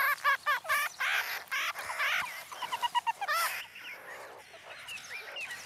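Meerkat pups calling with rapid, high squeaks and chirps, packed closely for the first three seconds or so, then fainter and sparser.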